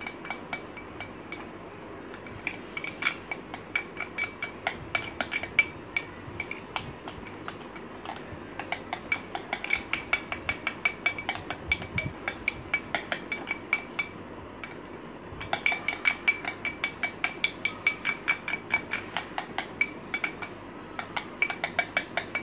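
Metal spoon stirring in a glass dessert bowl, clinking against the glass several times a second in quick runs that stop briefly twice.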